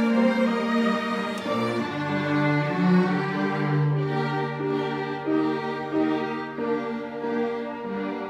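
String orchestra playing sustained bowed notes: violins above, with a low cello note held from about two seconds in.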